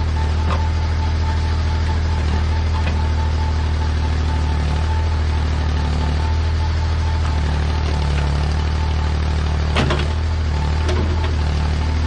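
Massey Ferguson backhoe's engine running steadily with a thin, steady whine over it, and a sharp clank about ten seconds in.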